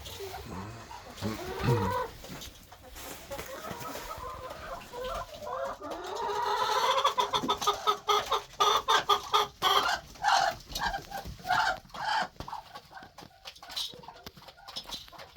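Chickens clucking, with a long run of loud, rapid clucks about halfway through.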